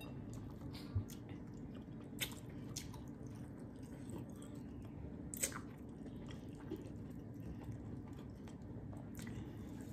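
A person chewing meat close to the microphone, with sharp wet mouth clicks and smacks now and then over a steady low hum.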